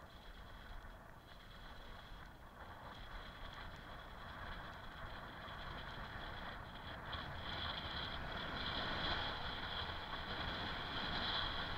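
Bicycle coasting downhill over a track of perforated concrete slabs: steady tyre and wind noise with a high hum, growing louder as it picks up speed.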